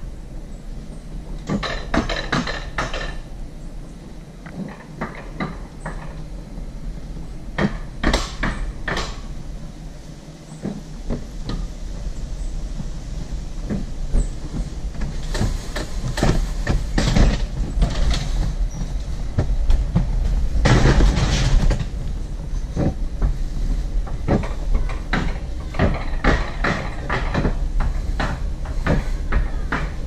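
Rail-guided bobsled car (mountain coaster) running down its steel track: a steady rumble of the wheels on the rails with frequent clicks and clatter at the rail joints. It grows louder from about the middle on as the car picks up speed.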